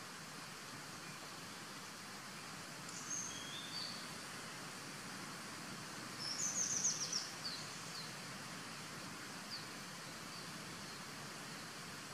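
Steady outdoor hiss with a small bird calling over it: a couple of short high whistles about three seconds in, then a quick trill of high chirps a little after six seconds, the loudest sound, and a few faint chirps after that.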